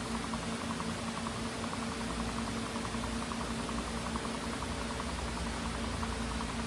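Steady mechanical hum and hiss, like a running fan or machine, with a faint rapid ticking in it.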